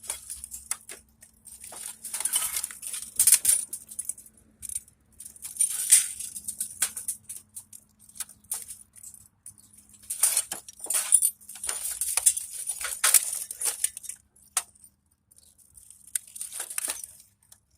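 Scrap parts from a dismantled desktop computer being handled: irregular clusters of clinking, rattling and scraping of metal and plastic pieces, each a second or two long, with short gaps between.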